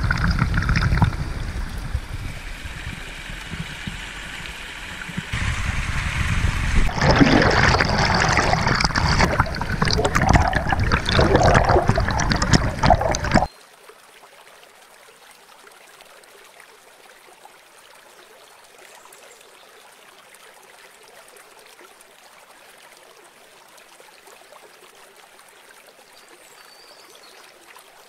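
River water flowing, loud and shifting for about the first half, then, after a sudden cut about halfway through, a fainter steady rush of flowing water.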